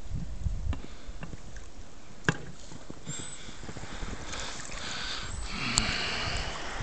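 Small waves washing and lapping at the water's edge, swelling to a louder hiss over the second half, over a low rumble of wind on the microphone; a single sharp click a little over two seconds in.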